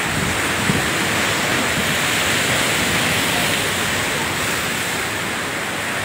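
Rough sea surging and breaking, with wind blowing across the microphone, a steady rush of noise.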